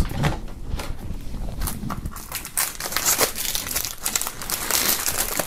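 Plastic shrink-wrap film crinkling and crackling as it is peeled by hand off a CD jewel case, a continuous run of quick crackles that gets busier in the second half.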